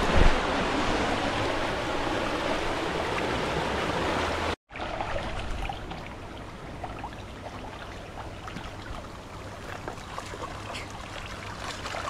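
Fast-running floodwater rushing in a stream. About four and a half seconds in it cuts off for an instant, then gives way to quieter running water with small splashes and trickles.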